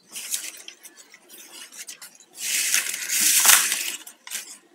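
Plastic basket-weaving wire rustling and clicking as strands are handled and knotted, then a long strand is pulled quickly through the weave with a loud, steady swish lasting about a second and a half, ending near the end.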